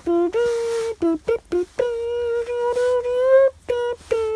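A child humming a simple wordless tune: a few short notes, one long held note, then more short notes.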